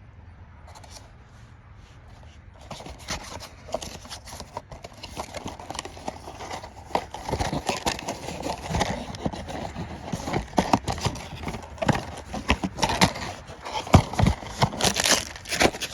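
A Funko Mystery Minis blind-box package being opened: dense, irregular tearing, crackling and crinkling of cardboard and foil packaging. It starts a few seconds in and grows busier and louder toward the end.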